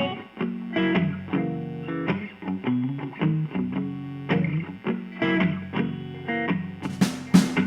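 Rock song intro: a distorted electric guitar riff plays note by note, sounding muffled with the highs cut off. Near the end, drum and cymbal hits come in with full, bright sound.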